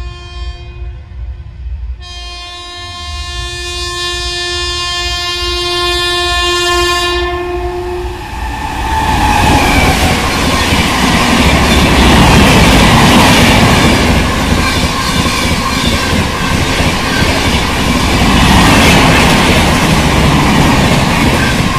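Locomotive horn of an Indian Railways express train, one note ending about a second in, then a long blast of about six seconds as the train approaches. The train then passes close by at speed, with a loud rush and wheel clatter that lasts to the end.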